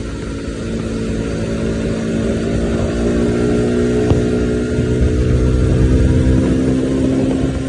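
Bajaj Pulsar NS200's single-cylinder engine running hard at speed, its pitch and loudness climbing slowly as the bike accelerates, then easing slightly near the end.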